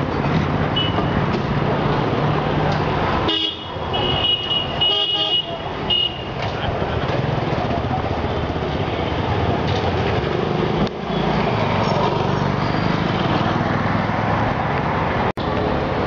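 Road traffic noise with engines running steadily and several short vehicle horn toots about three to six seconds in.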